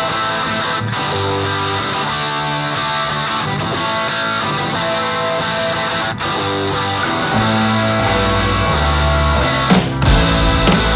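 Rock music soundtrack with guitar, growing louder with heavier bass about three-quarters of the way through.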